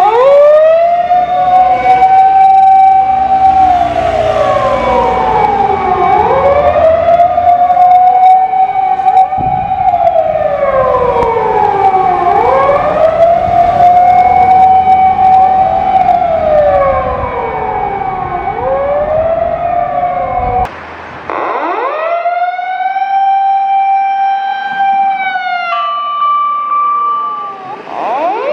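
Fire engine sirens on an emergency run: one siren winds up, holds and falls about every six seconds, overlapped by a second siren sweeping downward over and over, with truck and traffic rumble underneath. About two-thirds in the rumble cuts off abruptly and a wind-up siren continues on its own, joined near the end by a steady higher tone.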